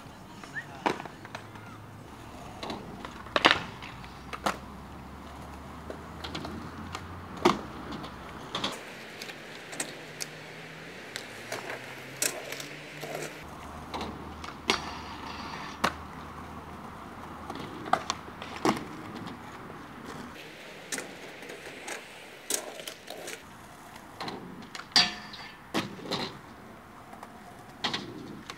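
Brand-new skateboard being ridden: irregular sharp clacks of the tail popping and the board and wheels landing and hitting the ramps, over the lower rolling noise of the wheels on painted concrete.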